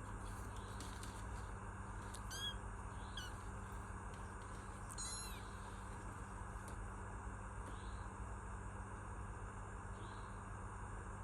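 Kitten meowing: three short, high-pitched meows about two to five seconds in, then two fainter ones later, over a steady low hum.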